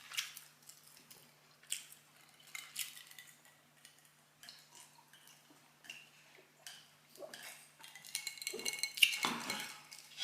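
Cutlery and dishes clinking and tapping during a meal: scattered light clicks and knocks, growing into a denser, louder clatter about eight and a half seconds in.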